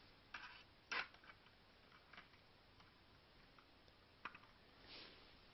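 Near silence broken by a few faint, scattered clicks and knocks, the loudest about a second in.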